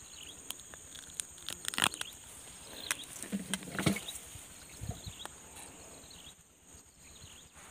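Close handling noises in dry grass: rustling with a few sharp clicks and knocks, the loudest about two and four seconds in, over a steady high insect buzz from the swamp.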